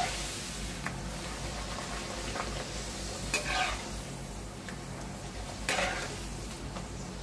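A puri deep-frying in hot oil in a steel kadhai, with a steady sizzle. A slotted steel spoon pressing and turning it scrapes and clinks against the pan a few times, most clearly about three and a half and six seconds in.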